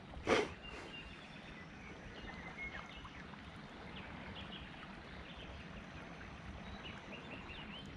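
Quiet riverbank ambience: a low steady background with faint, scattered high chirps of birds. One short, sharp knock or splash sounds just after the start.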